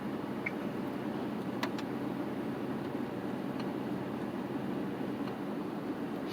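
Steady engine and road noise heard from inside a pickup truck's cab while driving slowly, with two faint clicks about a second and a half in.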